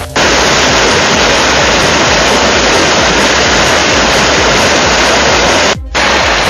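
River in spate: a loud, steady rush of churning floodwater. The sound breaks off for an instant near the end, then the rush comes back.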